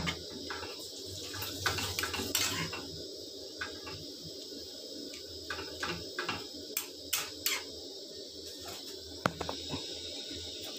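Metal spoon stirring noodles and vegetables in a steel kadhai, with irregular clinks and scrapes of spoon against the pan.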